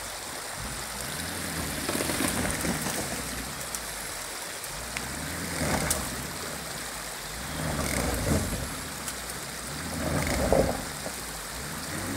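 A four-wheel-drive vehicle's engine revving hard in four surges while the vehicle is stuck on a muddy slope and barely moves. A steady hiss runs underneath.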